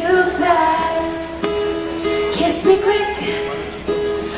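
Live band playing a pop ballad's intro, led by picked acoustic guitar, before the vocal comes in.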